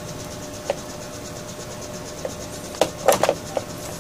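Light clicks and scrapes of multimeter test probes being touched and rubbed against the metal frame and terminals of an electric fan motor's stator, a cluster of them about three seconds in, during a check of the winding for a short to ground. Steady background hiss and hum throughout.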